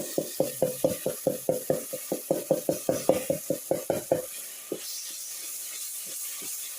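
A spoon stirring food in a cooking pot, knocking against the pot about five times a second for roughly four seconds, then stopping, over a steady sizzle of food frying.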